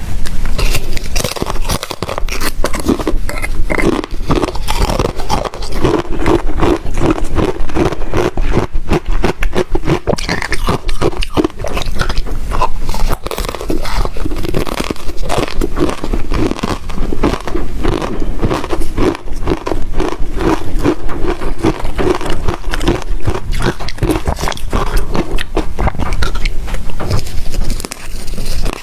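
Close-miked chewing of rectangular ice chips, with dense, continuous crunching and cracking of the ice between the teeth.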